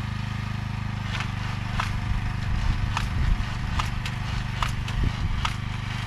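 Engine of a vegetable transplanting machine running steadily, with sharp mechanical clicks starting about a second in and repeating roughly every two-thirds of a second.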